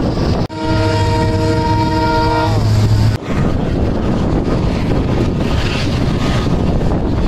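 Train locomotive horn sounding for about two and a half seconds, a chord of steady tones that bends just before it cuts off, over the rumble of the train. The rest is the steady running noise of the moving coaches with wind on the microphone.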